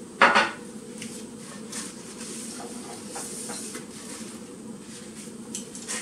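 A sharp clank against the frying pan just after the start, then a paper towel held in chopsticks wiped around the oiled nonstick pan, giving light scraping and scattered ticks over a steady low hum.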